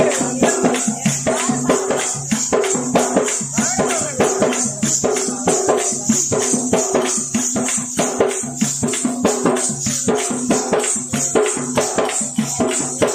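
Oggu Katha folk music interlude: fast, even drum strokes with a steady metallic jingle over them and a low drone underneath, accompanying dancing.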